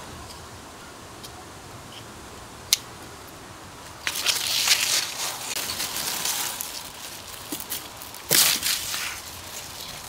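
Ruike LD43 multitool: one sharp click nearly three seconds in as its saw blade is opened, then the serrated saw blade cutting through a green plant stem in two spells of scratchy, crunching strokes, with leaves rustling.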